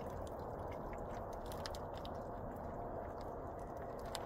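Plastic maple-sap collection bag crinkling, with scattered small clicks from the frozen sap chunks shifting inside it, as the liquid sap is poured off into a plastic bucket.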